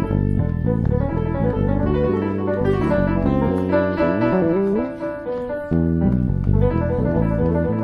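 Electric bass and keyboard playing jazz-fusion together: a busy bass line under keyboard chords and runs. Sliding notes come in around four seconds in, and the low bass drops out for about a second just after.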